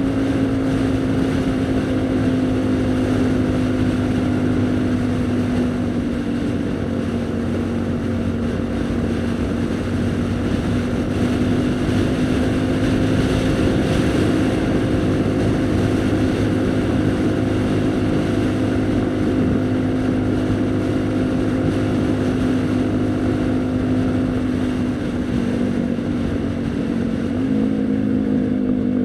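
Haojue NK150 single-cylinder engine running steadily while the motorcycle cruises, its note dipping and rising a little, with wind rushing over the microphone. Near the end the engine note changes pitch.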